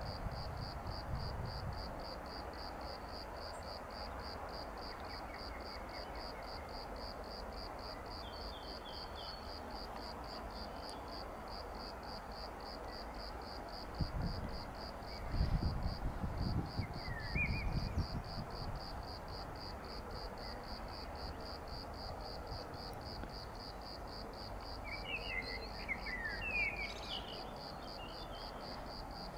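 Cricket chirping in a steady, rapid, even pulse, with a few short bird chirps. A low rumble swells for a few seconds about halfway in.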